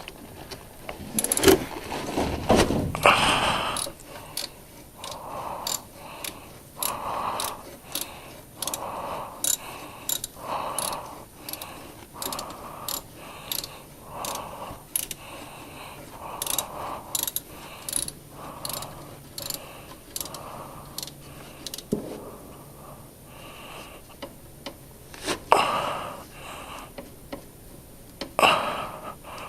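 A socket ratchet clicking in repeated short back-and-forth strokes, about one a second, loosening the engine oil drain plug, with a few louder clatters of the tool near the start and near the end.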